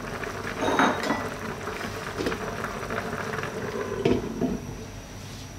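Sinigang broth bubbling at a steady boil in a pan. About a second in there is a clatter of cookware, and about four seconds in a glass lid is set down on the pan with a sharp clink and brief ring.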